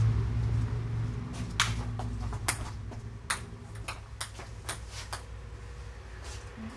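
Table tennis ball clicking off paddles and the table in a short rally: about seven sharp clicks, unevenly spaced, starting about a second and a half in. Beneath them a low rumble fades away.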